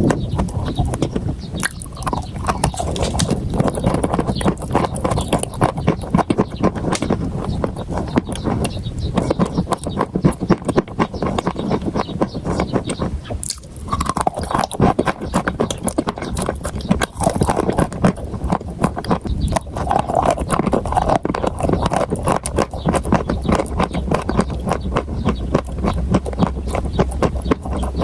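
Close-up crunching of food being chewed: a dense, steady run of crunches with a brief pause about thirteen and a half seconds in.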